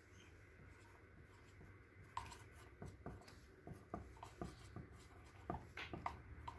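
Marker pen writing on a whiteboard: faint squeaks and taps of the pen strokes, which begin about two seconds in and come often from then on.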